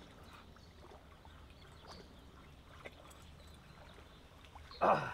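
Quiet water and small-boat sounds while a fish is landed: a few faint knocks and light splashes, then one short loud sound near the end.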